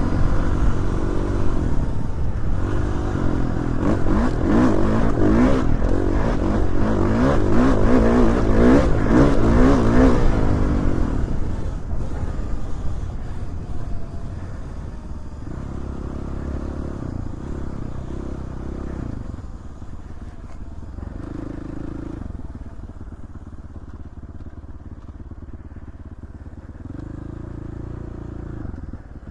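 Dirt bike engine running under throttle with repeated rises and falls in pitch. After about eleven seconds it eases to a quieter, lower throttle with short surges of gas.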